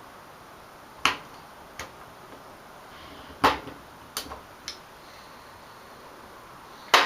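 Sharp, irregular clicks and taps of a tool working a snap ring off a motorcycle handlebar kill switch, about six in all, the loudest about a second in, midway and at the very end.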